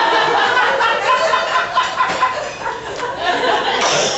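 Audience laughing and chuckling, many voices at once, with a few voices talking through it.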